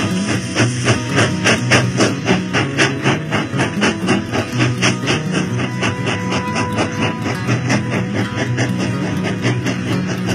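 Background music with a fast, steady beat, led by guitar.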